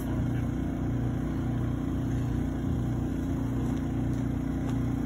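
A motor running steadily, with a constant low hum and an even, slow throb underneath.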